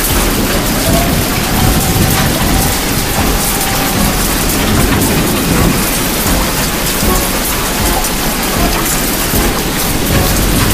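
Heavy typhoon rain pouring down, a loud, steady hiss of rain with no let-up.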